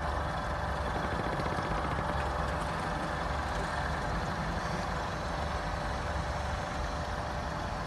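Engines of a Ribeye Prime 821 rigid inflatable boat running steadily at low speed, with a faint steady whine over the low hum.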